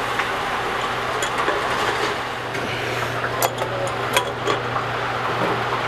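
A few sharp metallic clinks, the loudest two about three and a half and four seconds in, as the flexible stainless gas connector and its fittings are handled against the fryer. Underneath runs a steady noise with a low hum.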